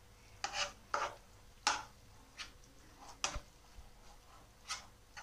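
Steel slotted spatula scraping and pressing semolina dough against a coated frying pan in short, irregular strokes, roughly one every half second to second and a half, as the suji is cooked in milk until it firms like dough.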